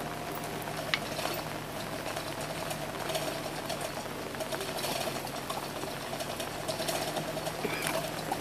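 A machine running steadily with a rapid mechanical rattle and a steady hum, a sharp click about a second in.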